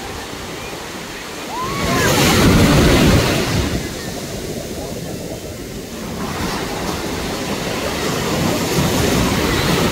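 Sea surf breaking and washing up the beach. A wave crashes loudly close by about two seconds in, and the wash swells again toward the end.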